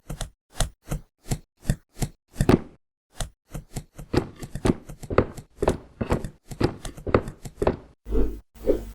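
A rapid, regular series of short sharp knocks or hits, about two to three a second and closer together in the middle, with dead silence between them.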